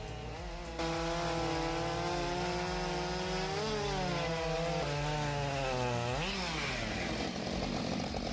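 Two-stroke chainsaw running at high revs through a cut, its pitch wavering as the chain loads up. It gets louder about a second in, and near the end the revs dip and climb back up.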